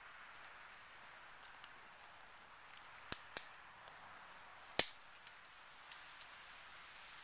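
Dead conifer twigs snapped off a tree trunk by hand: a few sharp cracks, two close together and then a louder one a second and a half later, with some smaller ticks over a faint steady hiss.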